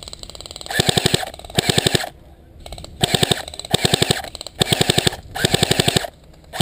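Airsoft gun firing about six short full-auto bursts, each a rapid run of sharp clicks lasting about half a second, with brief gaps between bursts.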